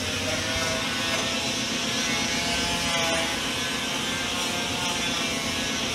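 Power buffer polishing a Mine's oval muffler's metal shell: a steady whirring rub with a faint motor whine.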